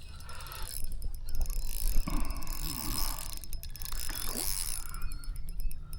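Clusters of sharp mechanical clicks and rattles from fishing gear handled aboard a kayak while bringing in a fish.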